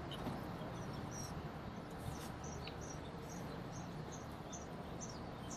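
Faint high chirps repeating evenly, about two a second, from a small chirping creature, over low steady background noise.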